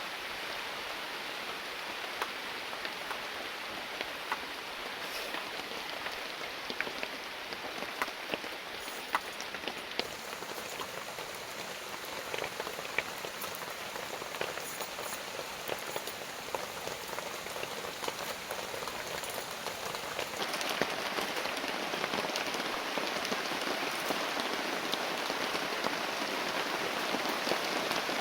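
Heavy rain falling steadily, with scattered sharper drop hits; it grows louder about twenty seconds in.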